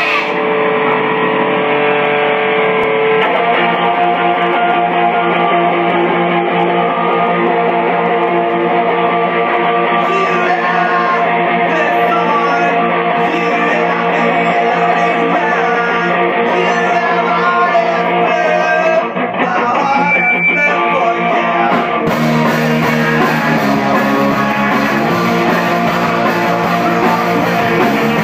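Live rock band playing loud: an electric guitar alone at first, joined about twenty-two seconds in by bass guitar and drums for the full band sound.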